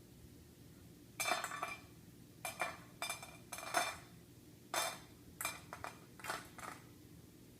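Dry dog kibble rattling in its container or bowl in a series of short, sharp bursts, as the dinner portion is shaken or scooped out.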